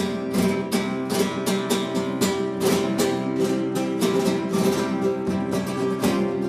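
Background music: an acoustic guitar strummed fast and evenly over steady held notes.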